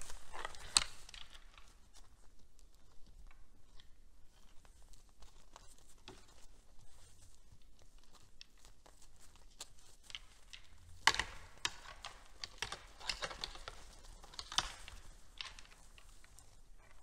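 Red deer feeding on hay: scattered rustling, tearing and crunching as the hay is pulled and chewed. The crackles grow denser and louder in a run about two-thirds of the way through.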